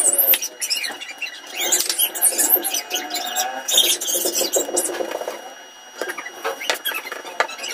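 Hands pinching off and rolling small balls of dough on a flour-dusted wooden board: soft rubbing with scattered small clicks and taps.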